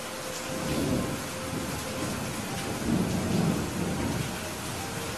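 Steady rain with low rumbles of thunder, swelling about a second in and again around three seconds in.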